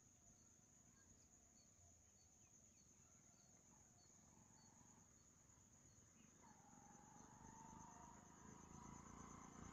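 Near silence over a faint, steady, high-pitched chirring of insects, like a cricket chorus. In the last few seconds a faint hum and low rumble slowly grow louder.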